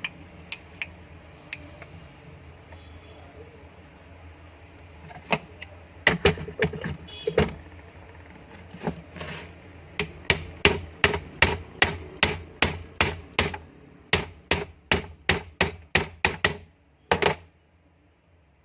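Hammer tapping on an exhaust fan motor while new ball bearings are knocked into place. It begins with a few scattered knocks, then a steady run of strikes about two or three a second, and ends with one last blow.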